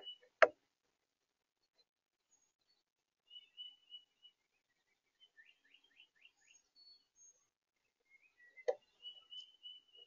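Small birds calling: short chirps, then a quick run of five or so falling notes, then more chirps near the end. Two sharp knocks on the feeder, picked up close to the camera, come about half a second in and near the end; the first is the loudest sound.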